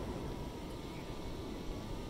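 Steady rush of ocean surf breaking against a rock breakwater.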